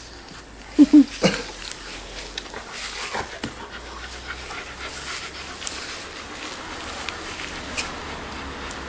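Husky panting steadily with its mouth open. Two short, loud vocal sounds come about a second in, and a few faint clicks follow later.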